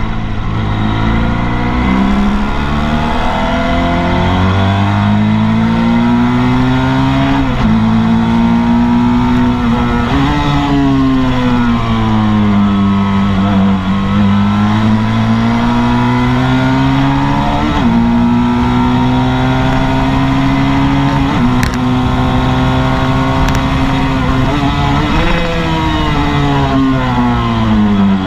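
Motorcycle engine heard from the rider's seat at track pace, its revs climbing and falling repeatedly: several quick drops in pitch as it shifts up, and slower sinking falls as it slows for corners.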